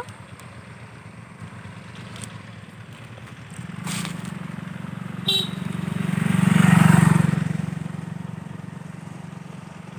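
A motor vehicle passing on the road: a low engine hum that grows louder to a peak about seven seconds in, then fades away. A brief high chirp comes just after five seconds.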